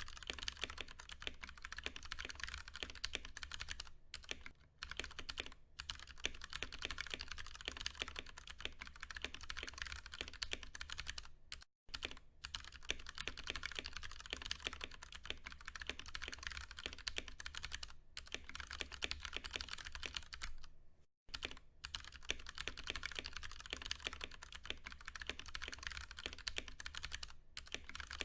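Fast, continuous typing on a Ducky One 2 Mini mechanical keyboard with tactile Cherry MX Brown switches, a dense patter of key clacks that stops for a moment twice, about 12 and 21 seconds in.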